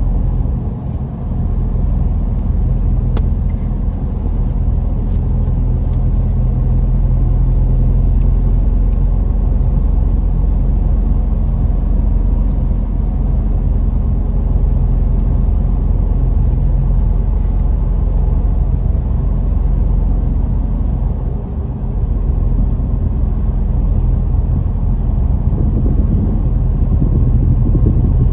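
Car driving at steady speed through a road tunnel, heard from inside the cabin: a continuous low engine and tyre rumble.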